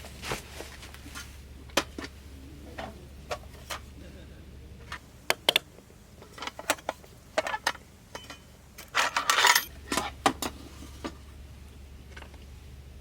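Small hard objects being handled and set down: scattered clinks and knocks, with a short burst of clattering about nine seconds in.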